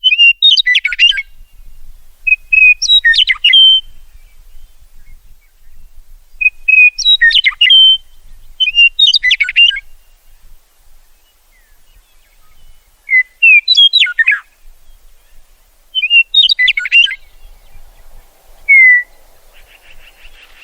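Meadowlark singing: six short songs of clear whistled notes that break into a quick jumble, each about a second long and a few seconds apart, then a single down-slurred note near the end.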